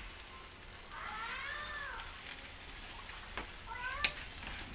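A cat meowing: one long rising-and-falling meow about a second in, then a shorter rising meow near the end, with a brief click just before it.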